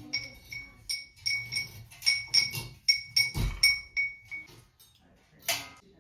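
Ceiling fan hardware clinking and ringing as the fan is hung, repeated metallic strikes at the same ringing pitch about three times a second, then a single brief louder clatter about five and a half seconds in.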